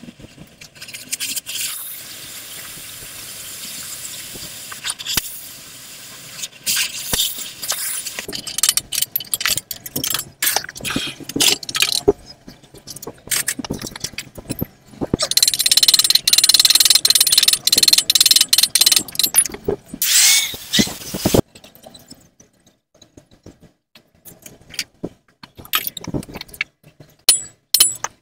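Metalworking sounds: a gas torch hissing steadily at first, then many scattered clinks and taps of metal on metal. About fifteen seconds in, a loud harsh rushing noise runs for about six seconds and stops suddenly, followed by more sparse clinks.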